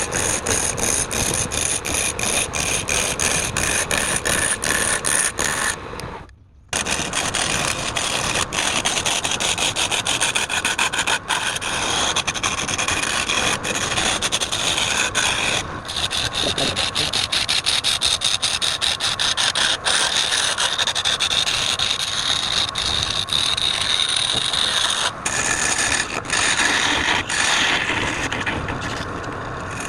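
Wood being worked on a lathe, a tool or abrasive rubbing and scraping against the spinning wood. There is a short break about six seconds in.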